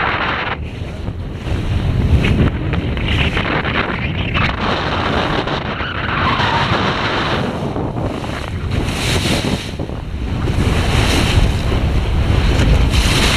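Wind gusting across the microphone over the steady rush of choppy sea water alongside a boat's hull.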